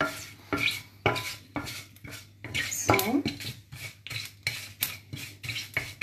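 Wooden spatula scraping and knocking around a steel pan, stirring mustard seeds as they toast in hot oil. It makes an irregular run of quick clicks and scrapes, several a second.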